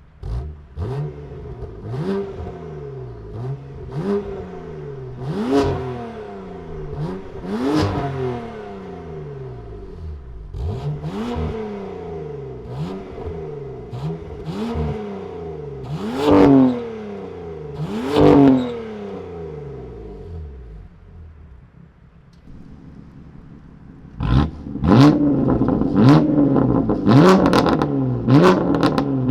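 BMW S55 twin-turbo straight-six, running through a titanium equal-length single-midpipe valved catback exhaust, blipped over and over. Each rev climbs and falls back, about a dozen in the first twenty seconds with crackles at the peaks. After a short lull near the end come quicker, louder revs.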